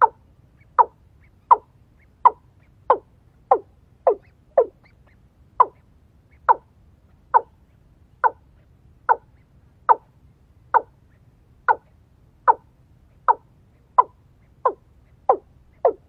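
Watercock calling: a steady series of short notes, each dropping in pitch, a little more than one a second.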